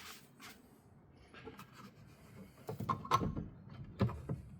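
Plastic tail-light bulb holder being handled and fitted back onto the light housing: faint rubbing, then a few hard plastic knocks and clicks about three seconds in and twice more about a second later.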